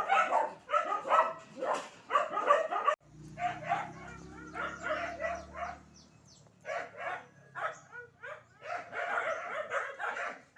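A dog barking repeatedly in quick runs of short barks, with brief pauses between the runs.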